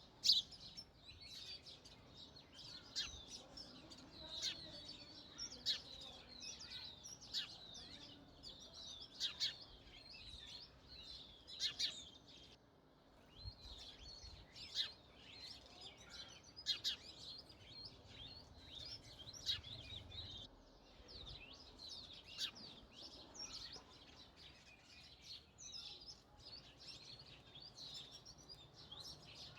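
Sparrows chirping steadily, with many short, sharp chirps overlapping and a brief pause about twelve seconds in.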